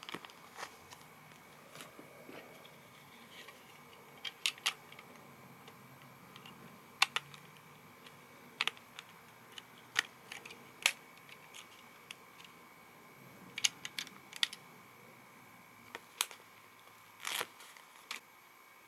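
Plastic LEGO bricks being handled and pressed together: scattered sharp clicks at irregular intervals, some in quick pairs, with a slightly longer rustle near the end.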